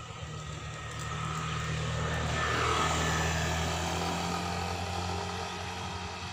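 A motorcycle passing by: its engine hum grows louder, peaks about three seconds in, then fades as it rides away.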